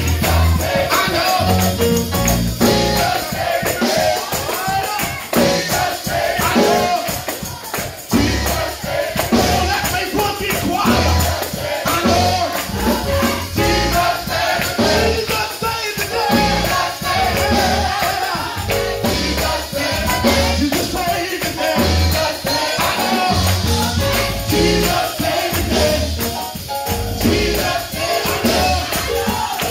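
Church choir singing a gospel song live with instrumental accompaniment, low bass notes under the voices and a steady percussive beat running through.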